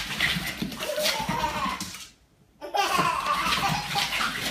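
A toddler laughing repeatedly. The sound cuts out completely for about half a second a little after two seconds in.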